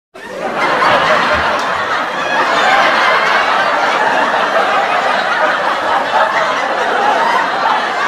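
Sitcom laugh track: a crowd of audience voices laughing together, swelling up within the first second and then carrying on steadily.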